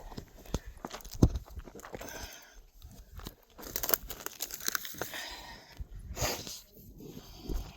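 Footsteps of a hiker scrambling over rocky, gravelly ground: irregular crunches and scrapes with sharp clicks of shoes on stone.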